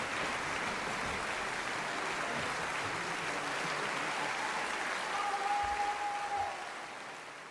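Concert audience applauding steadily, with one voice calling out and holding the call about five seconds in. The applause fades away near the end.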